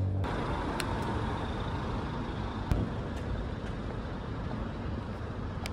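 Street ambience: a steady wash of road traffic noise, with a few sharp clicks and one louder knock a little under three seconds in.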